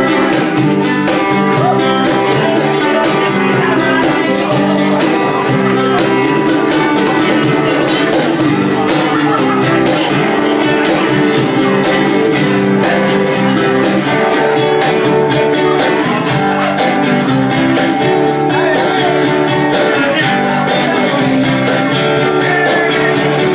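Live acoustic duo playing a song, with acoustic guitar strummed at a steady rhythm.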